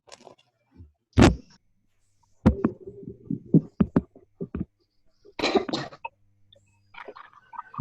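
A person coughing: one loud cough about a second in, followed by a run of shorter, quieter sounds and two more bursts just past the middle.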